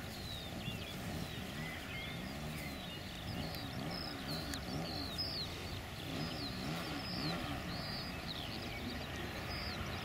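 The Extra 300S model's O.S. Max glow engine idling as the plane taxis, its pitch rising and falling over and over. Birds chirp throughout.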